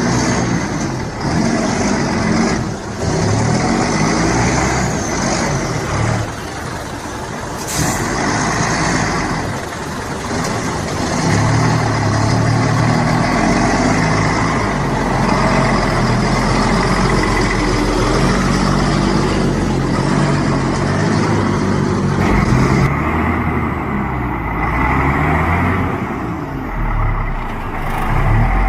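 Logging truck's diesel engine working hard off-road, its note rising and falling with the load, with a brief sharp hiss about eight seconds in.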